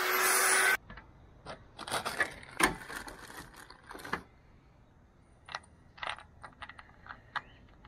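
Loud angle-grinder noise that cuts off abruptly under a second in. Then scattered light clicks, taps and scrapes of hard plastic roof-channel trim and clips being handled and prised loose on a pickup's roof.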